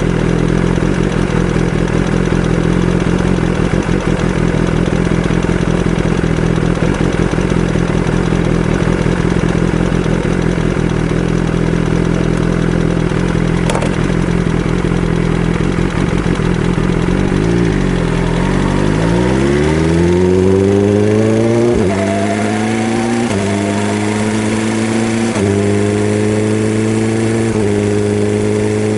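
BMW S1000RR's inline-four engine running: a steady idle, then about two-thirds of the way in the pitch sweeps up and climbs in several steps. The dealer has found a worn camshaft leaving a gap at the rocker arm, which causes a clattering.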